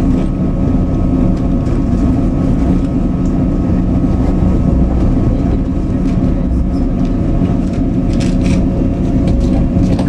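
Passenger-cabin noise of a Slovenian Railways Stadler FLIRT electric multiple unit running at steady speed: a constant rumble of wheels on track under a steady hum of unchanging pitch, with a few short clicks about eight seconds in.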